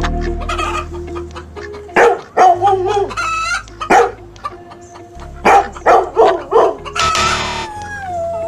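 Chickens clucking in a string of loud, sharp calls, then a rooster crowing near the end.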